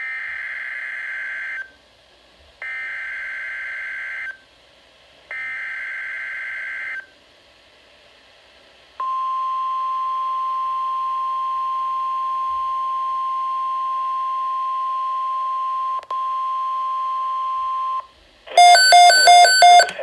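NOAA Weather Radio emergency alert signal played through a Midland weather alert radio's speaker. Three SAME digital header bursts, each a buzzy screech about 1.7 s long with short gaps between them, announce the alert. A steady single-pitched warning alarm tone follows for about nine seconds, dropping out briefly near its end. About a second and a half before the end, the radio's own louder alarm starts: rapid beeping in several pitches.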